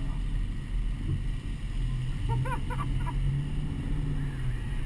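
Car engine and road noise heard from a camera mounted on the outside of the car, a steady low rumble as it drives slowly along a street. The hum rises a little about halfway through.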